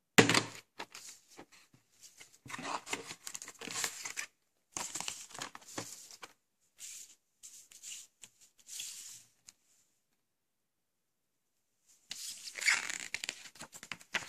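A plastic VHS clamshell case snapping open, then paper leaflets rustling and crinkling in short spurts as they are handled and unfolded, with a quiet pause of about two seconds before a last burst of rustling near the end.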